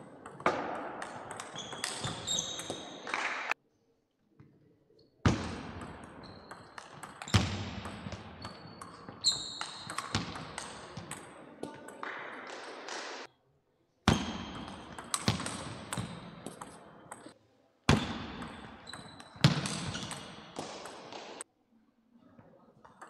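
Table tennis rallies: the plastic ball clicks in quick succession off the table and the rubber-faced paddles, echoing in a large hall. The sound cuts off abruptly to silence several times between points.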